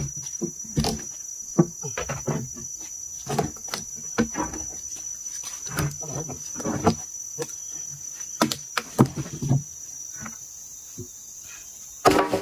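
Insects droning steadily in one thin, high tone, with scattered knocks and thumps throughout; the loudest come about a second and a half in and just before the end.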